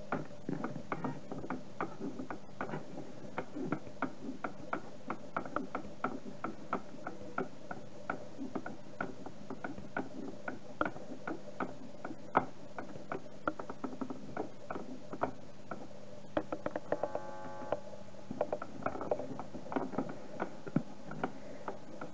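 Blaupunkt Derby portable transistor radio tuned off-station: irregular clicking crackle of static, a few clicks a second, over a faint steady hum, with a brief cluster of steady tones about 17 seconds in.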